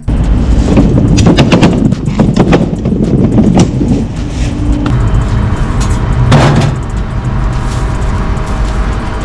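Wheeled metal trolley rattling and clattering as it is pushed over a doorway threshold and rough concrete, with steel trays knocking together. The knocks are densest in the first few seconds.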